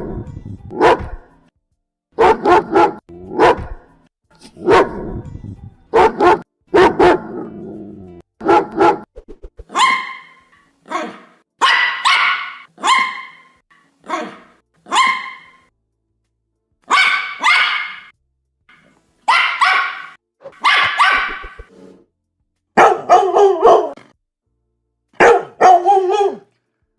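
Dog barking in short volleys of one to three barks, separated by silent gaps of a second or more. About ten seconds in the barks turn higher-pitched, and after about twenty-three seconds they drop lower again.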